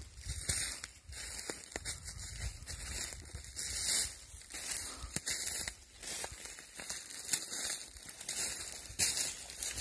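Footsteps crunching through dry fallen leaves on a woodland path, about one step a second.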